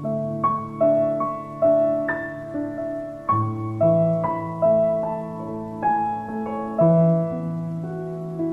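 Slow, gentle piano music: single notes struck about twice a second and left to fade over held low notes.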